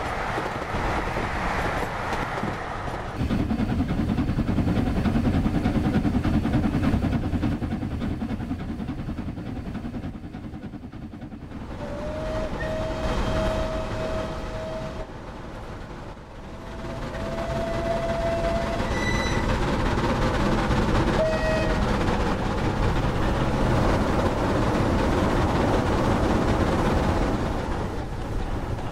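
Model steam trains running with their added realistic sound: a steady rumble and rattle of wheels on the track, with a steam whistle sounding three times in the middle.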